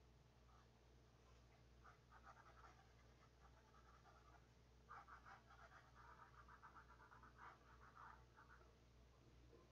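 Faint scratching of a Tim Holtz Distress watercolor pencil on coloring-book paper in quick, short back-and-forth strokes. One run comes about two seconds in and a longer one about five seconds in, over a low steady hum.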